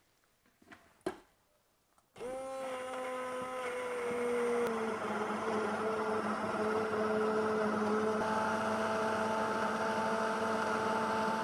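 Hand-held immersion blender starting about two seconds in after a couple of small knocks, then running steadily as it purées a thick cream soup in a pot. Its pitch dips slightly a couple of seconds after it starts.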